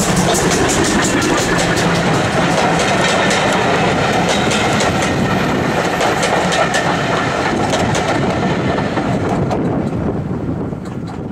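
A GWR steam tank locomotive and its train of coaches passing close by at speed: a steady loud rumble of the train with repeated sharp clicks of the wheels over the rail joints, fading near the end as the last coach goes by.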